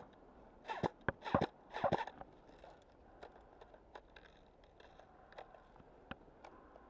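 Crunching and rustling of someone moving through dry undergrowth, four crunches in the first two seconds, then faint scattered ticks.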